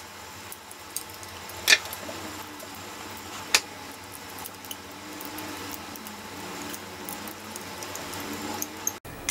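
Small metal clicks of a flathead screwdriver working in a steel .22 rifle bolt during reassembly: two sharper clicks about two seconds apart, with faint ticks and scrapes between.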